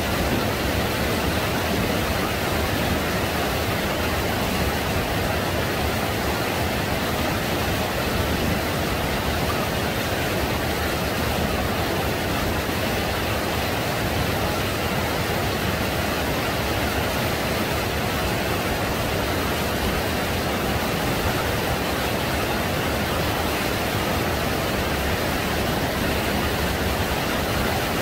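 Steady rushing noise of small waves washing in the shallows, with wind, unchanging throughout.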